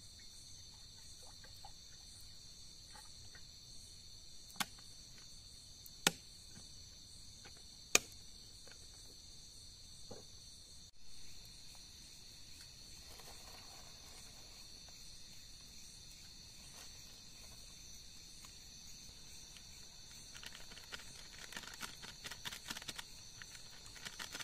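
Steady night chorus of crickets chirping. Three sharp clicks fall between about four and eight seconds in, and a spell of crackly rustling comes near the end.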